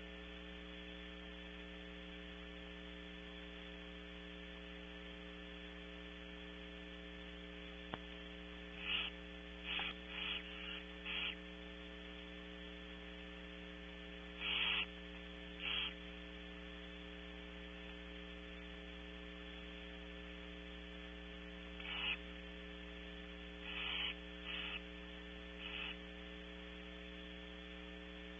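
Steady electrical mains hum under about ten short, hissing barn owl calls. The calls come in clusters: a few about a third of the way in, two around the middle, and four near the end.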